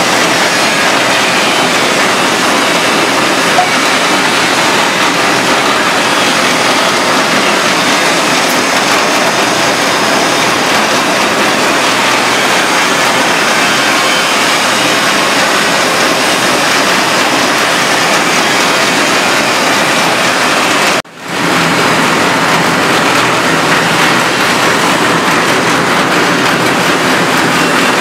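Rotary drum compost sieving machine running: its perforated steel drum turning with compost tumbling and sifting through it, a steady mechanical noise. The sound drops out briefly about three quarters of the way through.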